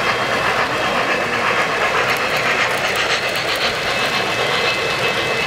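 O-scale three-rail model trains running on the layout's track: a steady whir and clatter of wheels and motors, with a passenger train passing close by in the second half.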